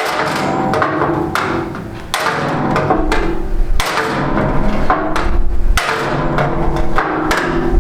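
Background music with sustained tones over a percussive beat.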